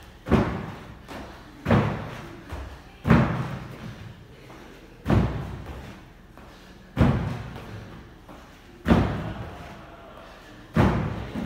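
Box-jump landings on a wooden plyo box: seven heavy thuds about every one and a half to two seconds, each dying away over about a second.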